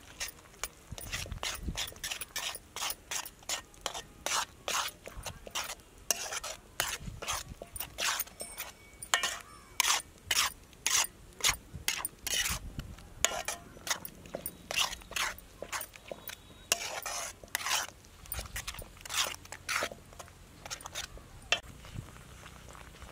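A steel spatula scraping around a black iron kadai, stirring thick ground-paste curry gravy. Quick repeated scrapes, about two a second, stop near the end.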